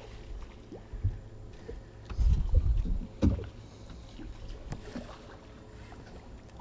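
Dull thumps and knocks on a small fiberglass boat as someone moves about the deck while fighting a hooked fish, with a cluster of heavy thumps about two seconds in and the loudest single knock about a second later.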